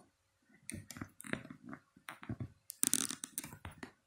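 Irregular soft knocks, clicks and rustles of handling, with the loudest clatter about three seconds in.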